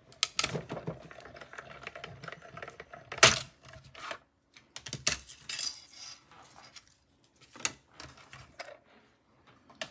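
Clicks, knocks and light metallic clatter as cutting plates and a thin metal butterfly die are pulled from a die-cutting machine and handled. There are a few sharp knocks, the loudest about a third of the way in.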